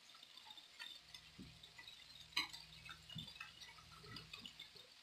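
Burgers frying in a skillet: faint, scattered ticks and pops of spitting fat over a faint low hum, with one sharper pop about halfway through.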